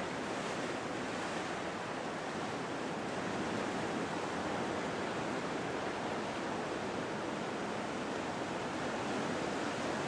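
Steady wash of sea waves breaking on the shore.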